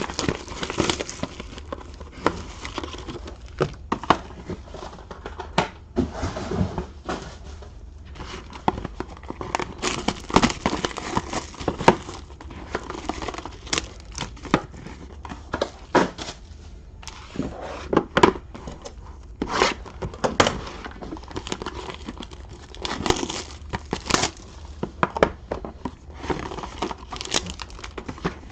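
Plastic wrapping and trading card packs crinkling and tearing as sealed card boxes and packs are opened by hand, in irregular crackles and rips.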